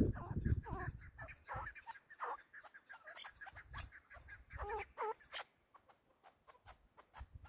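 Chukar partridges calling: a long run of short, repeated notes, with a couple of louder calls that bend in pitch about five seconds in. A low rumble at the very start.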